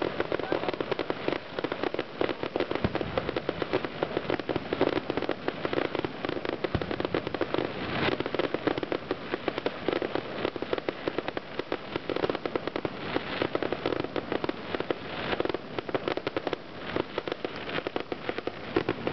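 Fireworks display: a dense, continuous run of crackling bangs and pops, with louder volleys about eight seconds in and again in the second half.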